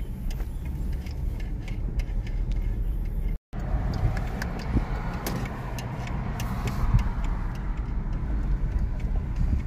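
Car cabin noise while driving slowly on rough dirt: a steady low rumble from the engine and tyres, with small crackles and clicks from the tyres on the loose ground. The sound cuts out for an instant about a third of the way in.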